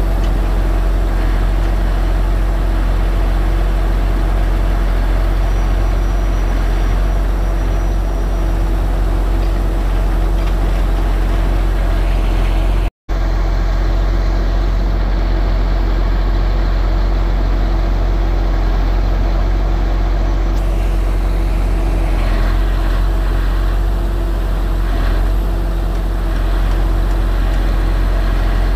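A steady, loud mechanical hum with a deep rumble and a few held tones, unchanging throughout apart from a brief dropout about 13 seconds in.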